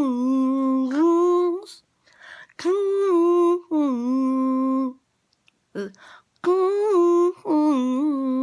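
A girl's voice holding long hummed notes in three phrases, each stepping down from a higher pitch to a lower held one, with short breaks between the phrases.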